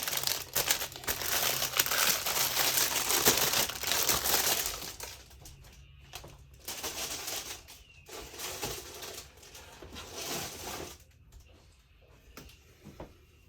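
Plastic packaging crinkling and rustling as it is handled, dense for about five seconds, then in quieter, intermittent bursts that fade out near the end.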